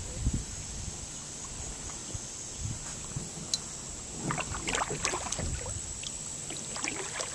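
Kayak on the water: paddle splashes and drips with light knocks against the hull, busiest about halfway through.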